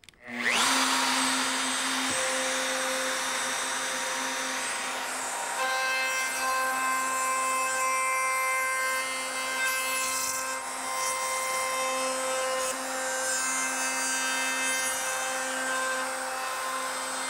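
DeWalt plunge router starting up with a brief rising whine about half a second in, then running steadily while its bearing-guided bit cuts a profile along the edge of a wooden board. A steady motor whine sits over the noise of the cut.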